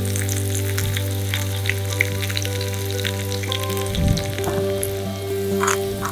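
Hot oil sizzling and crackling in a miniature clay kadai as chopped green chilli fries, with chopped onion tipped in about four seconds in. Background music with sustained notes plays over it.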